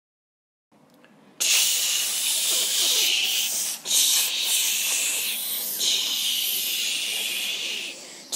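Loud hissing noise that starts abruptly about a second and a half in, with brief dips around four and six seconds.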